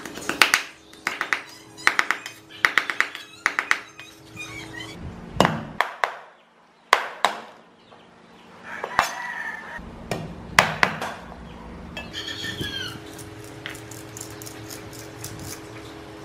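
Kitchen knife chopping on a wooden cutting board: a quick run of chops for about the first four seconds as fermented fish (prahok) is minced, then a few single cuts spaced seconds apart.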